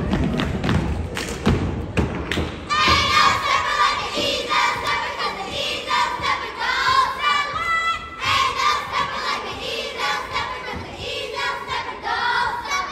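Step team stomping and clapping in rhythm on a wooden gym floor, sharp repeated thuds and claps; from about three seconds in, group voices chant in unison over the continuing beats.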